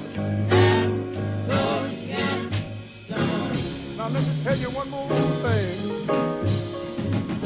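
Background music: a soul-blues song with a band and singing voices.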